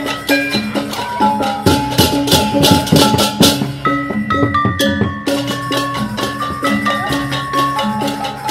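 Balinese gamelan music played on small bronze kettle gongs, their notes ringing in a steady pattern. A rapid metallic clashing is loudest between about one and a half and three and a half seconds in.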